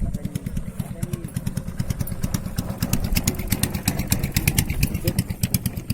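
Small engine running steadily with a rapid, even chugging and a mechanical clatter that grows louder towards the middle.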